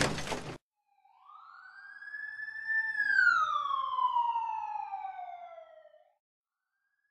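A loud crashing, shattering noise cuts off about half a second in; then a single siren wail rises for about two seconds and slides back down over the next three, fading out.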